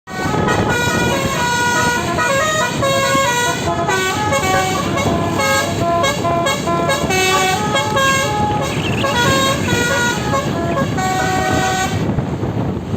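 Bus 'telolet' multi-tone horn playing a quick jingle of stepped notes, several pitches sounding together, over a dense noisy background. The notes stop about a second before the end.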